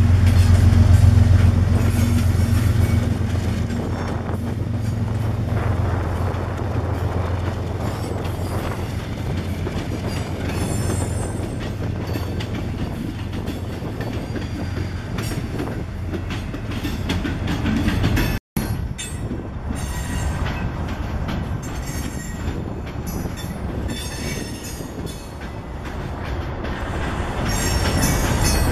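Freight train passing: a Union Pacific diesel locomotive's engine drones low at first and fades as it goes by, then the freight cars roll past with a steady rumble, wheel clicks and faint high-pitched wheel squeal. The sound breaks off for an instant about two-thirds of the way through.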